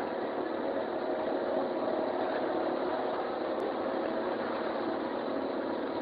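Excavator engine running steadily.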